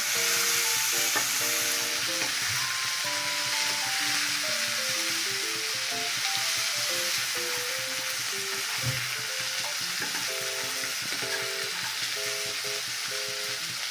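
Cut green beans sizzling in hot oil in a frying pan as they are stirred, a steady hiss throughout. A soft instrumental tune plays underneath.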